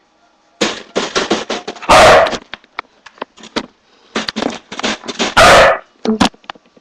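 Springer spaniel barking from inside a wire crate: two very loud barks, about two seconds in and again about five and a half seconds in, with runs of quick sharp sounds between and around them.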